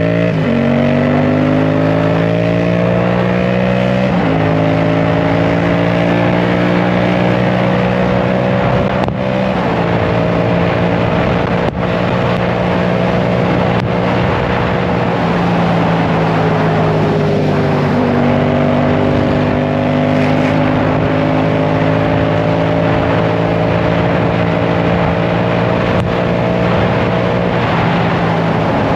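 Sport motorcycle engine heard from on the bike, its pitch rising as it accelerates, dropping at an upshift about four seconds in, then running steadily at high speed under wind rush, with a couple of small pitch changes later on.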